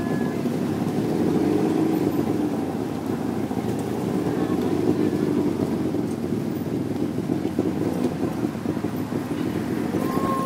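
Tuk tuk's small engine running steadily at low speed, heard from inside the open passenger cab.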